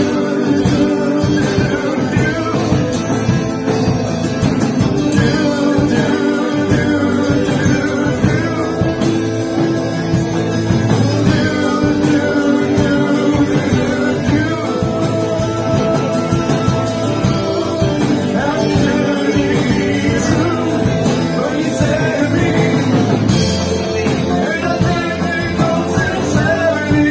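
A live band playing a song: a male singer over keyboard, violin and acoustic guitar, at a steady level throughout.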